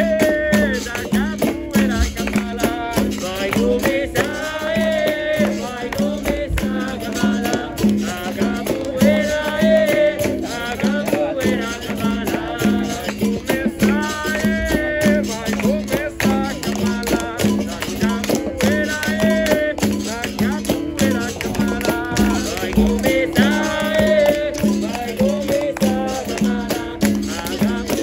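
Capoeira roda music: a berimbau played with a caxixi shaker, over percussion strikes, with voices singing in phrases of a few seconds each.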